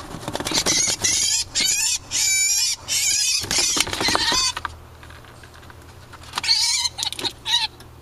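European starling giving harsh, rasping distress screeches as it is handled in a plastic pet carrier. The screeches come in two bouts, a long run of calls and then a shorter one after a pause, with light clicks and knocks from the handling.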